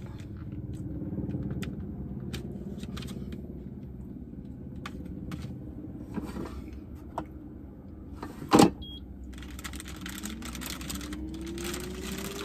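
Air fryer being handled: a low steady hum with scattered small clicks, then a loud click about two-thirds of the way through, a short beep, and the fan starting up with a whine that rises steadily in pitch.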